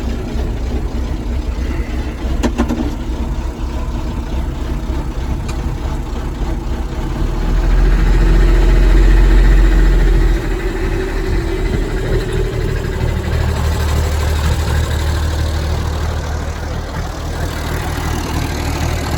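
Massey Ferguson 1105 tractor's six-cylinder diesel engine running steadily just after being started. About eight seconds in it grows louder and deeper for a couple of seconds, then drops back abruptly to its earlier level.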